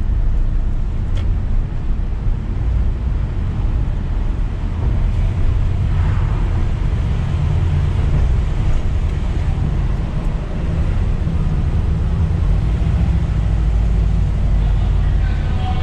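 Steady low rumble of a car being driven slowly, engine and tyre noise, as it boards a car ferry.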